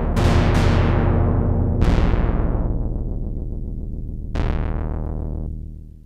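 Black Corporation ISE-NIN analogue polysynth playing a preset, dry with no reverb: four chords with sharp attacks over a held low note, each starting bright and darkening as it decays. The last chord, about four seconds in, dies away near the end.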